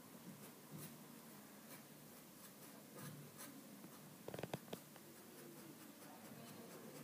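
Faint scratching of a scraper tool's nib across black scraperboard in short, repeated strokes as it scrapes away the ink layer. There is a brief run of louder clicks about four and a half seconds in.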